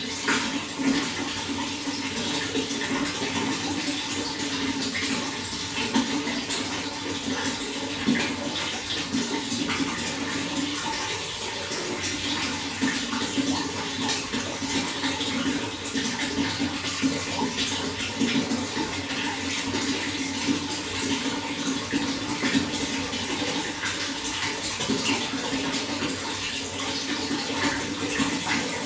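Running water, a steady flow with many small splashes throughout.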